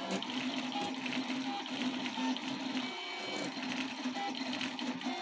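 3D printer's stepper motors whining in short tones that start, stop and change pitch as the tool head moves over a print, over a steady fan hiss.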